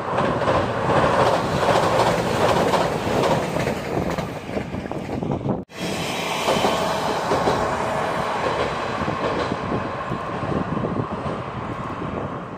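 Diesel limited express train (JR Shikoku's Uwakai) crossing a girder bridge, its wheels clattering on the rails. The sound breaks off abruptly a little over halfway through, and a single KiHa 32 diesel railcar is then heard running toward the listener with a faint steady tone.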